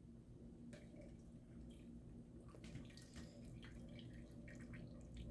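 Faint wet clicks and drips as a slab of slow-cooked pot roast is lifted out of a slow-cooker crock on kitchen utensils, its juice dripping back into the pot.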